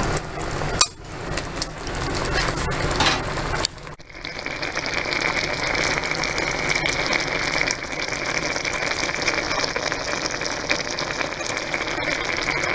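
Coconut milk with long beans and malunggay simmering in a pan, a steady bubbling hiss. In the first few seconds a few sharp clicks of stirring are heard; after an abrupt change about four seconds in, the simmering runs on evenly.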